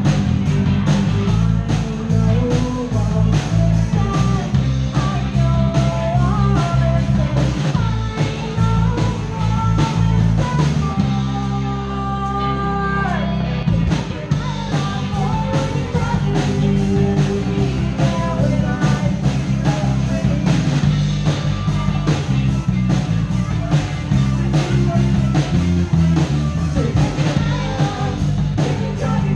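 Live rock band with drums, bass, guitar and violin playing, with singing, heard from close beside the drum kit. About 11 seconds in, the drums drop out for roughly three seconds under held notes, then the full band comes back in.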